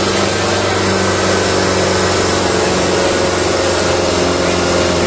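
Farm tractor's diesel engine running steadily as it pulls a loaded trolley, a constant even drone that holds its pitch.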